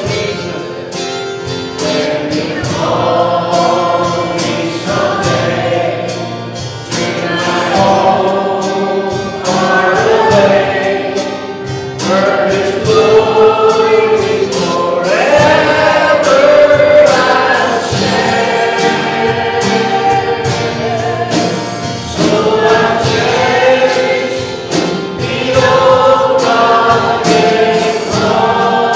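Congregational or choir singing of a gospel hymn with instrumental accompaniment and a steady beat.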